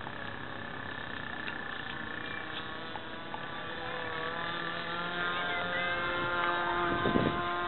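Radio-controlled model airplane's motor buzzing overhead with a steady pitched whine. The pitch shifts a few seconds in, and the sound grows louder toward the end.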